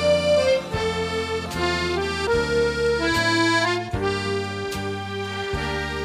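Red piano accordion playing a melody of held right-hand notes over a steady left-hand bass-and-chord accompaniment.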